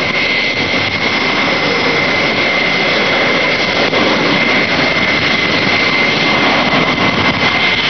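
Jet airliner's engines running on the ground: a steady rushing noise with a high whine held on one pitch.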